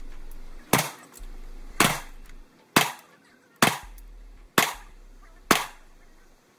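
Six handgun shots fired at a steady pace of about one a second, each a sharp crack with a short echo off the walls of an indoor shooting range.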